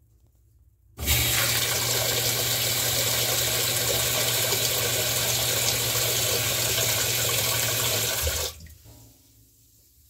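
Whirlpool top-load washing machine filling: water sprays from the fill nozzle into the drum onto the clothes. The steady rush starts suddenly about a second in and cuts off suddenly about seven seconds later.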